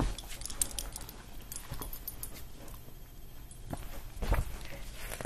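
Faint rustling and small knocks of a picture book being handled and held up close to a laptop microphone, with a louder bump about four seconds in. A dog makes small sounds close by.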